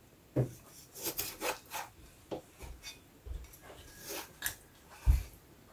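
Kitchen knife cutting chicken giblets on a cutting board: irregular scraping slices and short knocks of the blade against the board.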